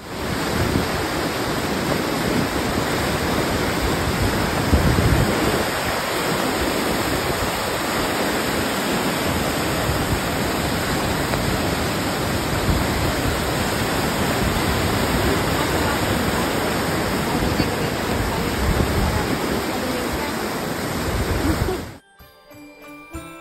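Floodwater rushing through a swollen river's whitewater rapids, a loud steady rush mixed with storm noise. It cuts off suddenly near the end, where Christmas music with jingle bells begins.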